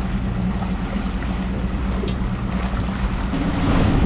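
Outboard motor running steadily at trolling speed, a low even drone over the rush of the boat's wake and wind. It gets louder near the end.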